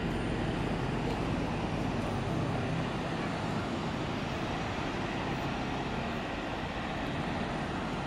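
Steady outdoor background noise, a low rumble and hiss with no distinct event.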